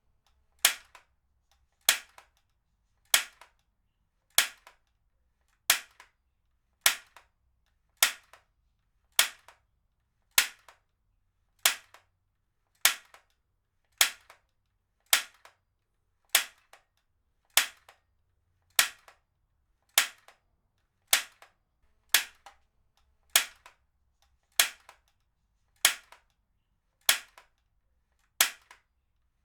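Heavy-duty stapler firing again and again, one sharp snap about every 1.2 seconds, each followed by a fainter click.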